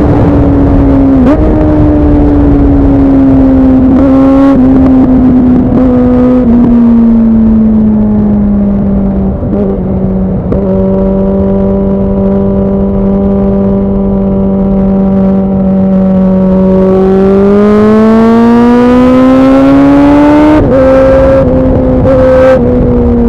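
2009 Suzuki Bandit 650's inline-four engine running through an aftermarket MIVV exhaust while riding: the note slowly falls and holds steady for several seconds. It then rises as the bike accelerates and drops suddenly near the end before settling again.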